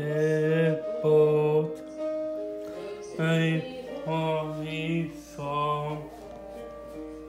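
A man singing a slow melody in held notes with a slight waver, over a quiet, steady accompaniment.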